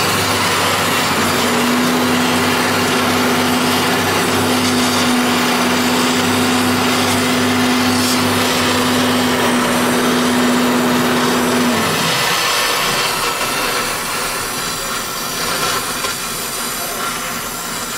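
Oxy-acetylene gas welding torch hissing as it welds a car's exhaust pipe to the muffler. Under it a steady motor hum runs until about twelve seconds in, then stops.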